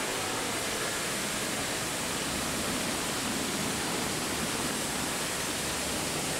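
Fountain of the Naiads' jets splashing into its basin: a steady, even rush of falling water.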